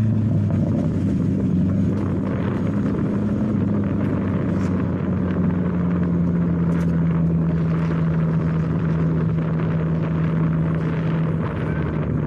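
Car engine whose pitch falls as the revs drop at the start, then runs at steady revs, over wind-like rushing noise.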